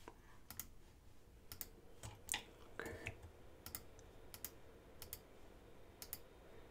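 Faint, irregular clicks of a computer mouse and keyboard, about a dozen, many in close pairs. They come from clicking to select edges while Ctrl and Shift are held.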